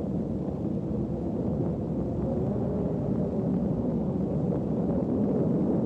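Steady low rumbling drone of a science-fiction soundtrack effect, with no clear beats or melody.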